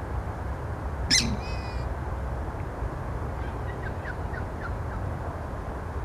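Purple swamphen giving one loud call about a second in, followed by a few faint short chirps, over steady low background noise.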